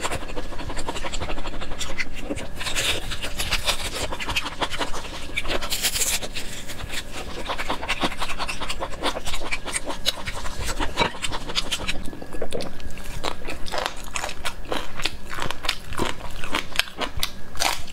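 Close-miked eating of spicy beef ribs: gnawing and tearing meat from the bone and chewing, a dense run of short clicks and mouth smacks.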